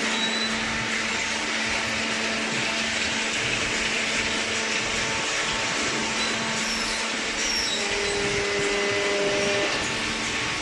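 Hydraulic cardboard baler running: a steady hum and hiss from its electric motor and hydraulic pump.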